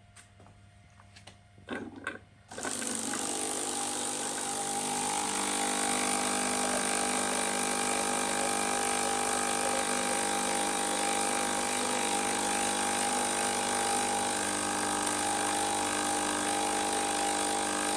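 Breville BES990 espresso machine running a shot after a few soft clicks: a loud, steady machine sound with several steady tones over a hiss, starting about two and a half seconds in and holding without change.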